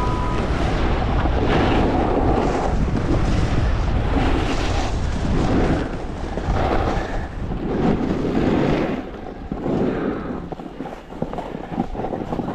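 Wind buffeting the microphone over the hiss and scrape of a snowboard carving packed snow, rising and falling in swells about every one and a half seconds as it turns. The wind rumble and scraping ease off in the last few seconds as the board slows to a stop.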